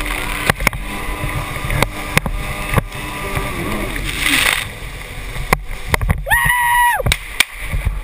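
Kawasaki X2 stand-up jet ski's two-stroke engine running, with water spraying and splashing over it, and many sharp clicks throughout. About three quarters of the way through, a brief high tone rises and falls.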